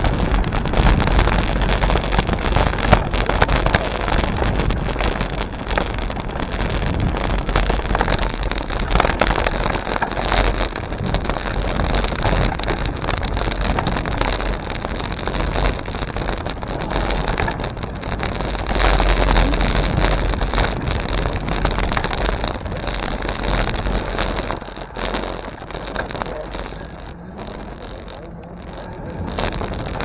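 Wind rushing over the microphone of a moving bicycle camera, with a heavy low rumble. It eases off a few seconds before the end.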